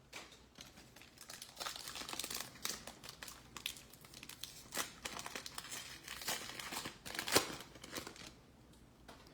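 Foil wrapper of a football trading-card pack crinkling and tearing as it is opened, in a string of short crackles with a sharper rip near the end.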